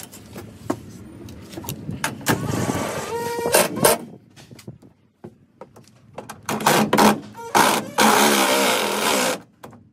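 Makita 18V cordless impact driver running stainless steel bolts into rivet nuts: a few short bursts of the tool, then a longer run of about a second and a half near the end as a bolt is driven home.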